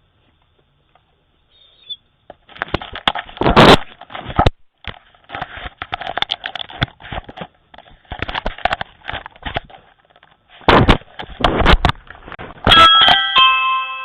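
Irregular knocks, scrapes and rustles right against a Ring video doorbell's microphone, as the dog bumps and paws at it. Near the end the doorbell's own chime sounds, several notes ringing out one after another: the button has been pressed.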